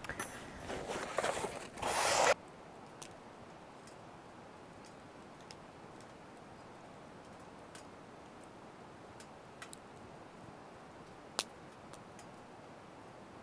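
Rustling and clattering of camping gear being packed away, busy for about two seconds and then cutting off suddenly. After that, a quiet steady background with a few scattered small clicks, one sharper click near the end.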